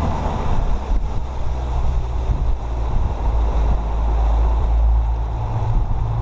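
Mercury four-stroke outboard motor running steadily at speed, with wake water rushing behind the boat and wind buffeting the microphone.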